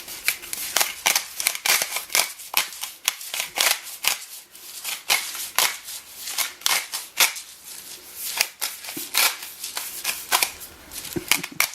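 Hand salt grinder being twisted over a tray of crackers, cracking pink salt crystals: a long run of crisp, gritty clicks and crunches, stroke after stroke at an uneven pace.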